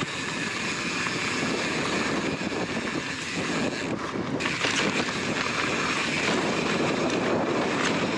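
Strong wind buffeting an action camera's microphone, mixed with mountain bike tyres rolling over a dirt trail.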